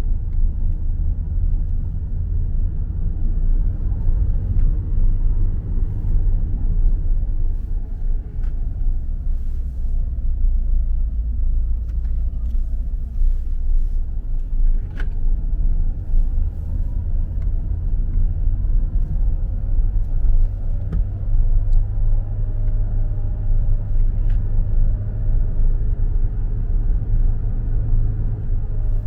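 A steady low rumble, with little in it but deep tones.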